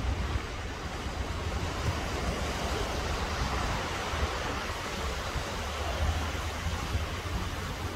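Small waves breaking and washing up a sandy shore in a steady surf hiss that swells slightly about three to four seconds in, over a low rumble of wind on the microphone.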